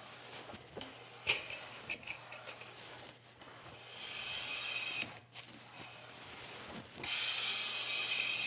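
Two strokes of a #5 metal bench plane across a softwood board, each a brief hissing swish of the iron taking a thin shaving, the second just before the end. They follow a couple of light clicks about a second in. The blade is still being set, its cut heavy on the left side.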